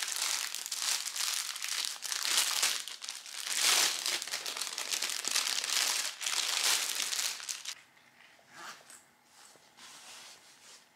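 Plastic packaging crinkling as it is handled and opened: continuous, loud rustling for about eight seconds, then a few softer rustles.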